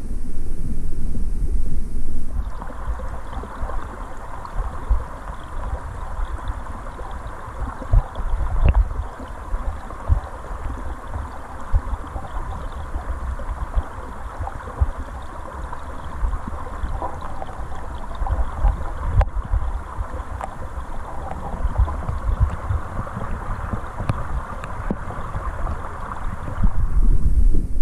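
Flowing stream water heard from an underwater camera: a low, muffled rumble with irregular thumps as the current buffets the housing. From about two seconds in until near the end, a steady rushing hiss of moving water sits on top of it.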